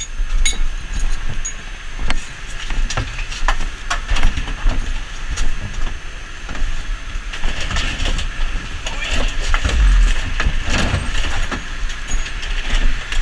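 Irregular footsteps, knocks and gear clatter from a firefighter walking along a house's side yard, over a steady engine rumble and hiss.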